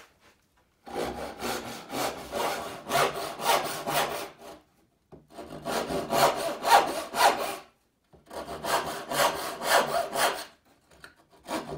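Hand backsaw cutting dovetails into the end of a wooden board, sawing in three bouts of quick back-and-forth strokes with short pauses between.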